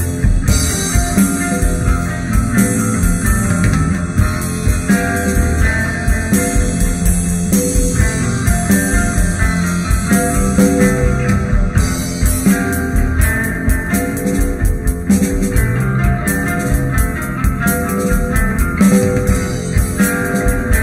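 Instrumental band music: guitar, bass and drum kit playing together at a steady beat, without vocals.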